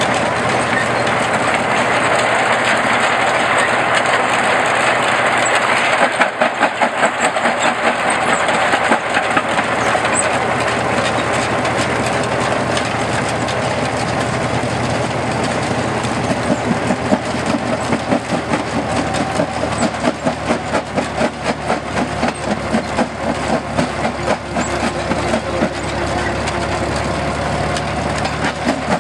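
Antique belt-driven rock crusher running off a tractor's flat belt and crushing stone, a steady rhythmic clatter over the tractor engine; the clatter grows stronger about halfway through.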